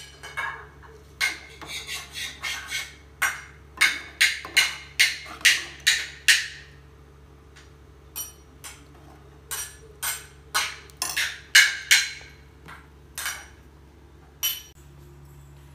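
Metal ladle knocking and scraping against a metal pressure cooker pot and a steel bowl while thick curry is served: a run of sharp clinks, several a second, in two bursts with a pause of about a second between them.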